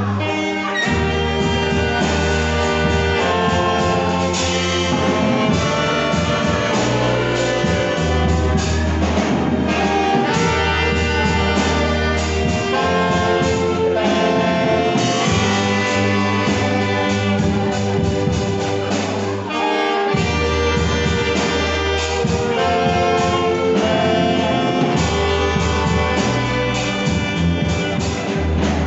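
A children's saxophone ensemble with violins playing a gospel praise tune in held, sustained notes, over a deep bass line that drops out now and then.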